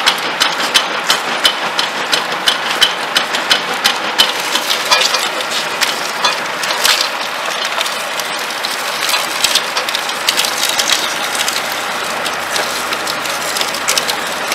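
Old cast-iron sugarcane mill running: its gears clack about three times a second at first, then give way to a denser crackle of cane stalks being crushed between the rollers.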